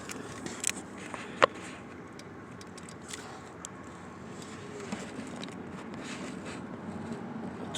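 A few sharp metallic clicks from a socket, swivel and extension being handled, the loudest about a second and a half in, over faint steady background noise.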